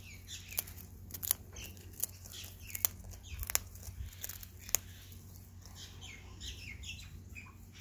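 A sulphur-crested cockatoo biting and crunching a cracker biscuit held in its foot: sharp cracks about once a second, thinning out after about five seconds.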